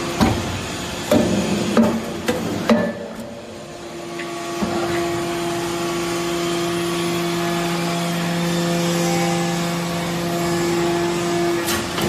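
Hydraulic briquetting press for metal turnings: several sharp metallic knocks in the first three seconds. Then, from about four and a half seconds, a steady low hydraulic hum with a few tones as the ram compresses the swarf into a briquette, stopping just before the end.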